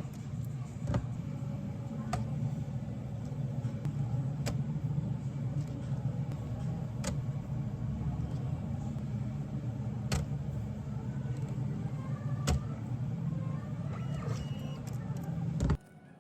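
A steady low machine hum with a sharp click or knock every second or two, cutting off suddenly near the end.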